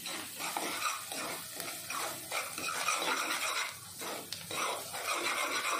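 A spoon stirring and scraping onions and spices frying in oil in a metal kadhai, in repeated strokes over a light sizzle.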